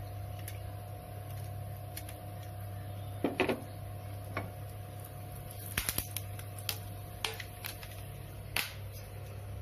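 Whole spices (cinnamon, green cardamom, cloves) crackling in hot mustard oil in a pan: scattered sharp ticks and pops over a steady low hum.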